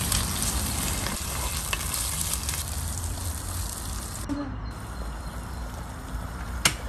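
Prawns frying in hot oil in a clay pot with a steady sizzle while a wooden spatula stirs them. There is a sharp click near the end.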